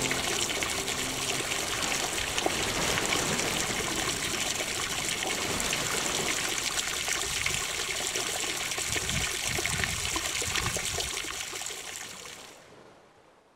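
Steady trickling and splashing of running water at a duck pond, fading out near the end.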